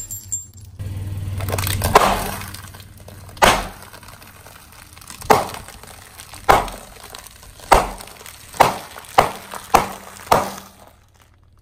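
A car tyre rolling over brittle items and crushing them: about nine sharp cracks and snaps, one every second or so and closer together near the end, over a low steady hum.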